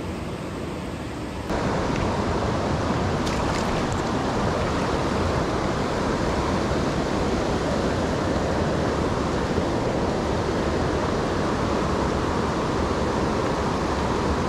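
Steady rush of the West Branch of the Ausable River's flowing water, a mountain trout stream, which gets louder about a second and a half in.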